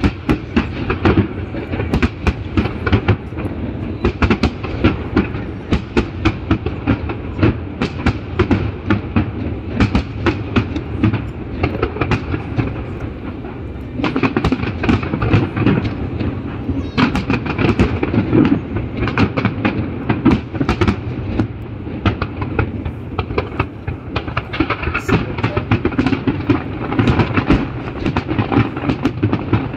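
Fireworks going off in a rapid, continuous barrage: many sharp bangs and crackles a second over a steady rumble, growing louder about halfway through.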